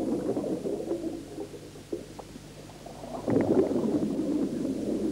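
Scuba diver's exhaled air bubbles gurgling and rumbling underwater, heard through the water; a fresh exhalation makes a louder surge of bubbling just over three seconds in.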